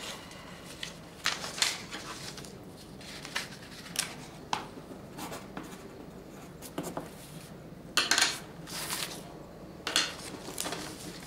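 Sheets of paper rustling as document pages are handled and turned, in short, scattered bursts.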